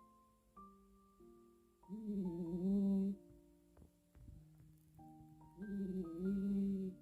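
A sleeping pet snoring twice, each snore just over a second long and about three and a half seconds apart, over gentle background music.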